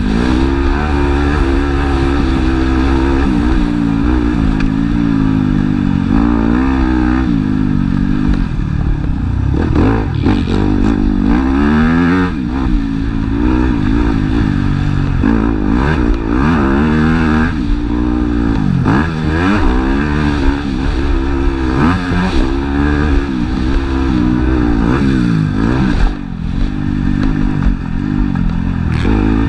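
Motocross dirt bike engine recorded on board, revving hard and falling back again and again as the rider accelerates, shifts and rolls off for corners, with a brief throttle cut near the end.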